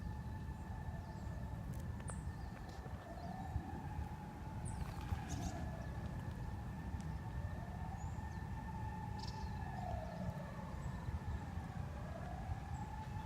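Ambulance siren wailing, its pitch slowly rising and falling about every four and a half seconds, over a steady low background rumble.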